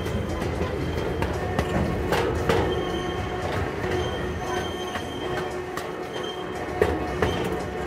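Miniature park train rolling along its track: a steady rumble from the wheels, with sharp clicks over the rail joints and a thin, high wheel squeal.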